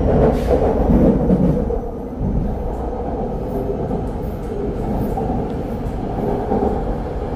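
A Bangkok MRT Purple Line elevated train running, heard from inside the carriage: a steady low rumble and hum of the train in motion.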